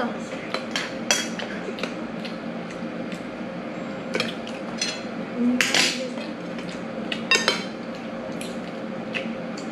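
Spoons and forks clinking and scraping against ceramic dinner plates during a meal, in irregular sharp clinks, the loudest about six and seven seconds in, over a faint steady hum.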